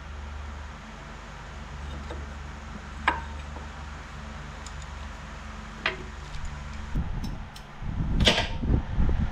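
Tools and engine parts being handled during engine disassembly: two sharp single clicks, then a stretch of knocking and clatter with a loud scrape about a second before the end, over a steady low hum.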